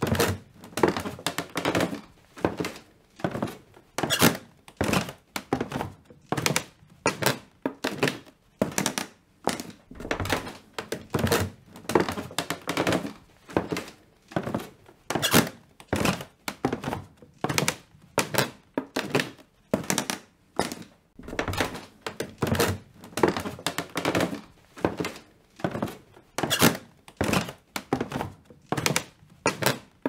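Footsteps of someone in slippers walking on stairs: soft footfalls one after another in a steady rhythm, in a small room.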